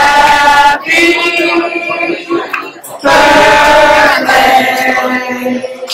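A group of voices singing a birthday song loudly, in long drawn-out sung phrases with brief breaks between them.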